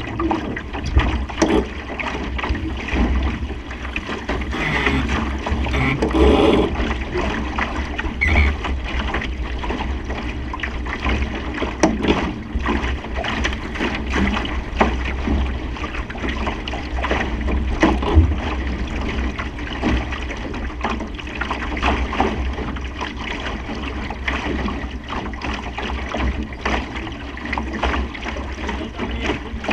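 Supernova sailing dinghy under way in a fresh breeze: water rushes and splashes along the hull while wind buffets the microphone in a steady low rumble, with scattered knocks and slaps throughout.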